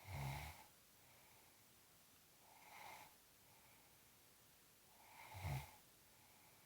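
Snoring during sleep: three rasping snores about two and a half seconds apart, the middle one softer.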